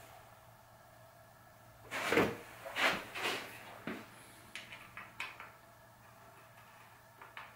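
Workshop handling noises: a cluster of knocks and scrapes about two seconds in, then a run of lighter clicks and a couple more near the end, as bike parts and tools are picked up and put down during bottom bracket fitting.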